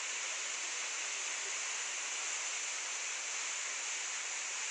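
Steady rushing of a distant waterfall, an even wash of sound with no breaks.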